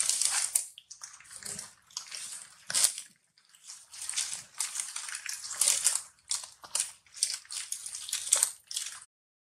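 Irregular crunching and crackling noises, coming in quick uneven bursts with brief pauses, cut off by a short break near the end.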